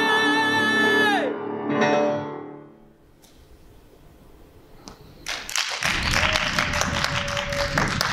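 Tenor holding a final sung note over piano, released about a second in; a last piano chord rings and fades away. After a couple of seconds of quiet, the audience breaks into applause.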